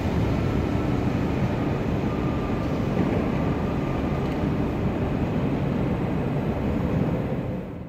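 Steady low rumble of trains in a station, with a faint thin whine between about one and four seconds in; it fades out at the very end.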